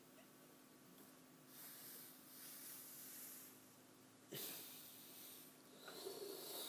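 Faint, breathy puffs of air through the mouth, then a sharper gulp of air about four seconds in, as a person works up a burp.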